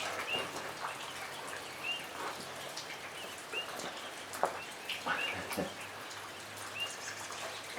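Rain pattering on a metal roof: a steady hiss with scattered drops ticking. A short high chirp recurs about every second and a half, and a few louder knocks come past the middle.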